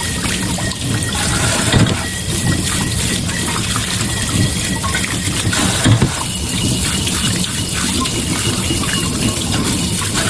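Water gushing and splashing steadily, with a couple of dull knocks about two and six seconds in.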